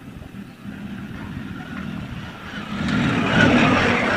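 A motor vehicle going past close by, growing louder over about three seconds and loudest near the end.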